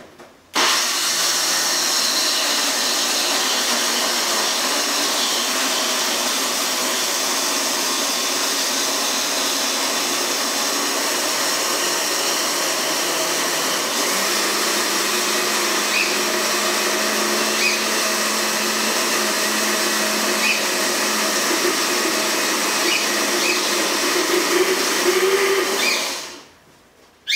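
Countertop electric blender running steadily, blending apple pieces with yogurt, oat bran, chia and flaxseed into a smoothie. It switches on just after the start, its motor note changes about halfway through, and it is switched off shortly before the end.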